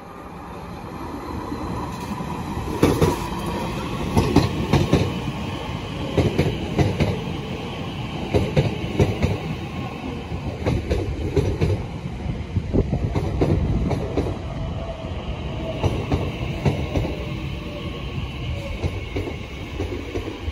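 Elizabeth line Class 345 electric train running past the platform, growing louder over the first few seconds, its wheels clattering over rail joints with irregular sharp knocks above a steady rumble.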